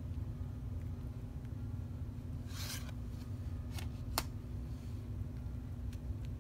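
Tarot cards being handled: a card slides against the deck with a short scratchy rustle about two and a half seconds in. Two light clicks follow about a second later, the second the sharper, over a steady low hum.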